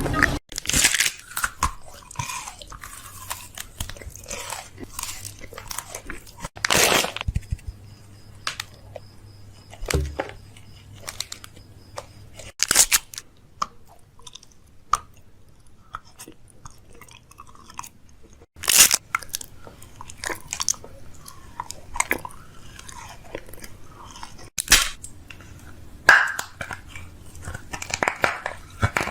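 Close-up chewing of something crunchy: a run of irregular sharp crunches and clicks, with a louder crunch every few seconds.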